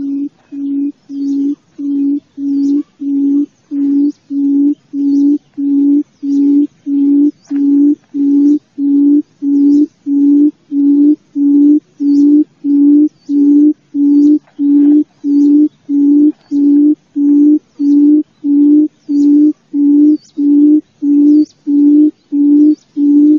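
Wild quail's call: a long series of low, even hoots, about one and a half a second, swelling louder over the first few seconds and then holding steady. Faint high chirps sound above it.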